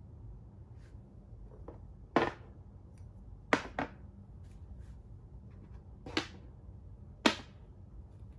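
Plastic makruk (Thai chess) pieces being set down and slid on a plastic board as moves are made: five sharp clacks, two in quick succession about three and a half seconds in, with a few fainter taps between.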